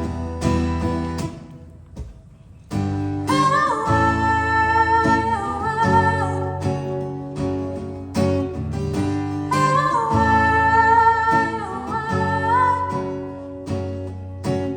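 A female voice singing over acoustic guitar accompaniment. The music drops to a brief lull about two seconds in, then the singing resumes in long held notes.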